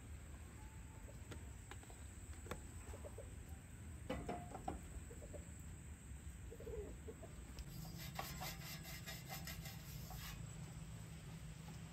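Chickens clucking faintly a few times over a low steady hum, with scattered light clicks. Near the end there is a rapid run of clicks lasting about two seconds.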